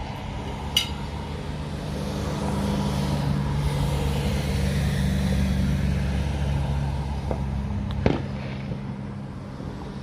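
A motor vehicle's engine hums low and steady, swelling through the middle and then fading. Two sharp firework bangs cut through it, one near the start and one about eight seconds in.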